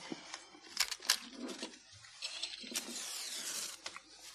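Cutlery clinking and scraping on plates at a meal table: a scattering of sharp clicks, with a short scrape about three seconds in.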